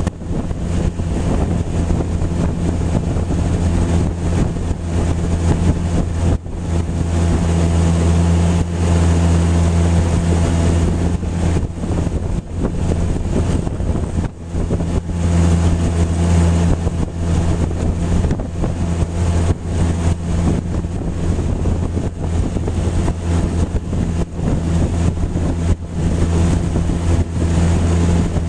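Newly repaired Tohatsu outboard motor running steadily, driving a small aluminium jon boat under way, with wind noise on the microphone.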